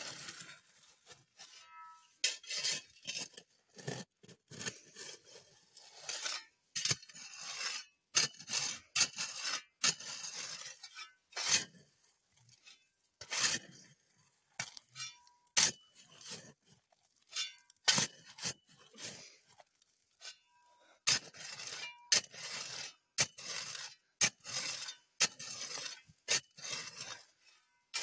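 Shovel digging into loose river sand: repeated scraping strokes of the blade with metallic clinks, coming irregularly about once a second.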